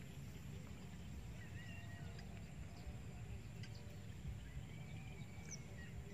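Quiet outdoor ambience: a steady low rumble, likely wind on the microphone, with faint distant bird chirps.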